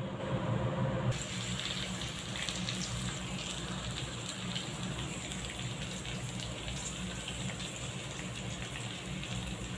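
Pointed gourds (parwal) frying in mustard oil in a karai: a steady sizzle with fine, scattered crackles that starts abruptly about a second in. Before it comes a softer sound from the pot of khichdi cooking on the gas.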